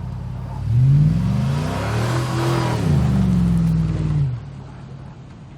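Pickup truck engine running steadily, then revved hard under throttle, climbing in pitch for a couple of seconds before easing back. Near the end it drops off quickly to a lower, quieter running sound as the throttle is released.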